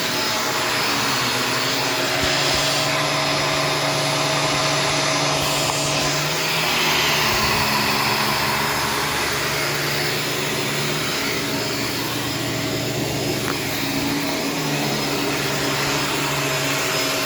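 Shark Stratos upright vacuum with a self-cleaning brush roll, running steadily as it is pushed over the floor picking up hair. Its motor hum shifts slightly a few times as the head moves.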